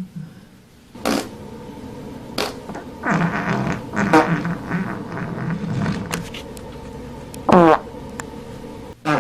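A run of fart sound effects: a few short sharp ones, a long sputtering, rippling one lasting about three seconds, and a loud short one near the end.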